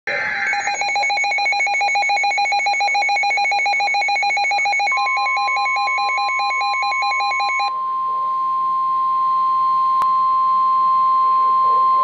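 NOAA weather alert radio sounding an alarm: rapid pulsing electronic beeps. About five seconds in, a steady single tone joins them, the 1050 Hz Weather Radio warning alert tone. The beeping stops near eight seconds and the steady tone carries on, signalling that a warning broadcast is about to follow.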